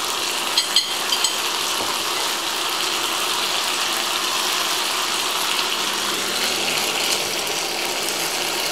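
Beef steak and vegetables sizzling in a frying pan, a steady crackling hiss. There are a few light clicks about a second in.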